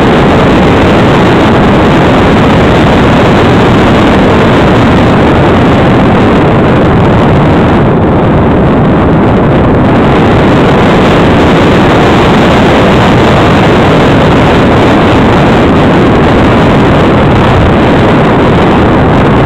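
Steady, loud rushing noise of air streaming over the onboard camera of a Fox RC glider in unpowered flight. The hiss dulls briefly about eight seconds in.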